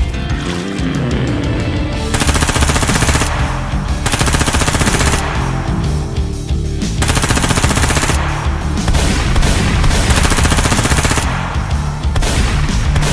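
Machine-gun fire sound effects in several rapid bursts, each a second or two long with short gaps between, over background music.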